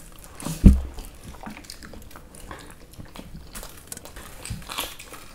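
Close-miked eating sounds: biting and chewing, with one loud low thump under a second in, then faint scattered mouth clicks and smacks.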